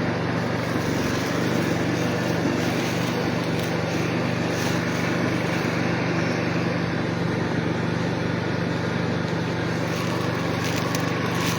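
An engine running steadily: an even low hum with a constant pitch over a wash of noise.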